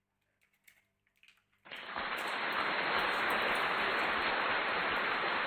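A few faint clicks, then a steady, even hiss that starts suddenly about two seconds in and holds at a constant level.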